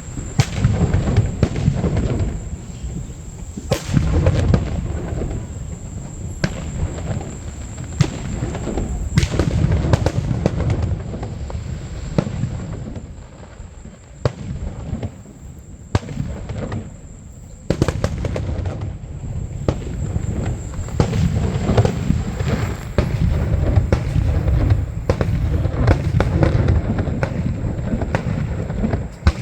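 Aerial fireworks display: shells bursting one after another with deep booms and sharp cracks and crackle. The bursts thin out for a few seconds about halfway through, then come thick again.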